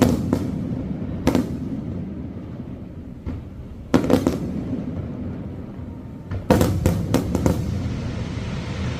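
Fireworks bursting: single sharp bangs at the start, about a second in and about four seconds in, then a quick run of several bangs from about six and a half to seven and a half seconds, with a low rumble between the bursts.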